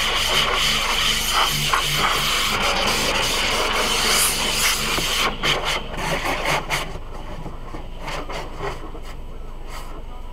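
Automatic car wash working over the car, heard from inside the car: a loud hissing wash of water and scrubbing against the glass for about five seconds, then a run of separate swishes that dies away about seven seconds in, with a few more near the end.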